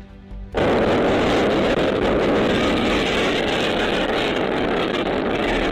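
Strong storm wind rushing and buffeting the microphone, a loud steady noise that starts about half a second in after a brief quiet gap.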